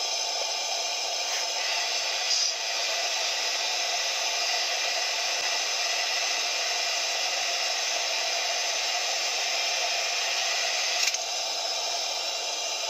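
Portable gas lantern burning with a steady hiss, with a brief faint click about two seconds in and another near the end.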